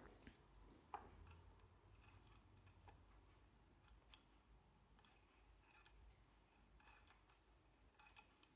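Faint, scattered metal clicks of a tool working inside an ABS lock cylinder while trying to retrieve its magnet, a handful of irregular ticks a second or more apart over a low hum.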